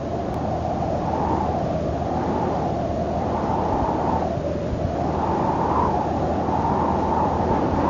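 Wind blowing, a hollow rushing whose pitch drifts slowly up and down, over a low steady hum.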